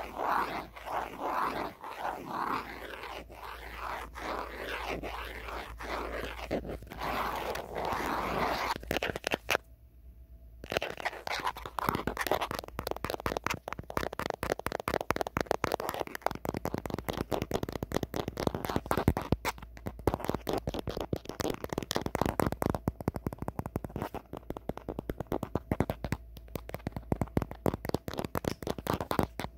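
Natural fingernails scratching over an old phone around its camera for about nine seconds. After a brief pause, the nails tap on it rapidly, many sharp taps a second, for the rest.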